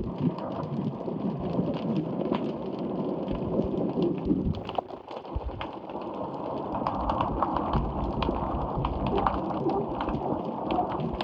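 Ocean water washing and sloshing beneath a wharf: a steady low rumbling wash with scattered sharp little knocks and clicks, easing briefly about halfway through.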